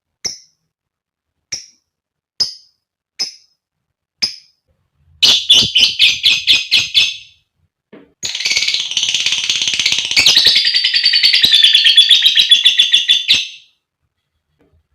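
Female lovebird calling: five single shrill chirps about a second apart, then a quick run of chirps, then a long rapid chattering trill of about five seconds that stops abruptly.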